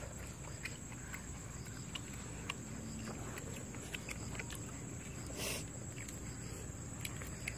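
Hands eating chicken curry and rice from paper plates: soft clicks and squelches of fingers tearing chicken and mixing rice, over a steady outdoor hiss with a constant high tone. One short rustle about five and a half seconds in.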